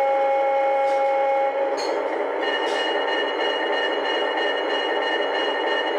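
Lionel O-gauge Alco S4 diesel switcher's electronic sound system through its small speaker: a two-tone diesel horn held for about a second and a half, then the diesel engine's rough running sound, with a steady high whine coming in partway through.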